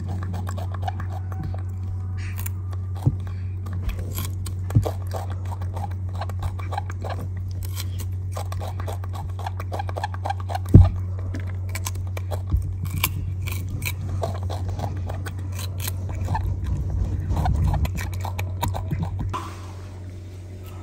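A baby monkey biting and chewing raw cucumber: many small crisp crunches and clicks over a steady low hum, with one sharp knock about halfway through.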